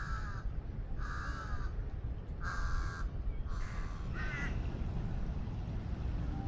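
Crow cawing: four caws about a second apart, then only a steady low background rumble.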